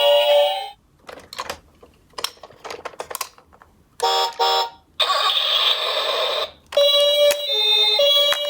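Japanese-style two-tone hi-lo ambulance siren (pi-po) that stops just under a second in. Then come a few seconds of small clicks and rattles, two short beeps, and a hissing noise of about a second and a half. The hi-lo siren starts again near the end.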